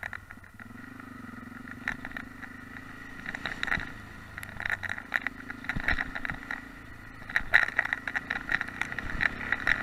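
Yamaha XT660X's single-cylinder engine running at a steady low speed, under a dense clatter of short rattles and knocks as the bike jolts over a potholed dirt track. The rattling comes in bunches and is heaviest in the second half.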